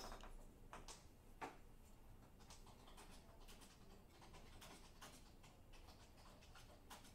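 Faint irregular ticks and light scraping of a small stick spreading resin glue along the broken edge of a ceramic plate shard, with a couple of slightly louder clicks in the first second and a half.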